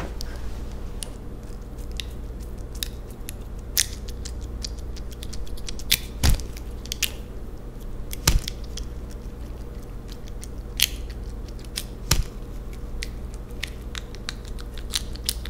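Gory cutting sounds of a knife going through a hand and severing fingers: wet crunches and sharp cracks at irregular intervals, the loudest about six, eight and twelve seconds in, over a low steady hum.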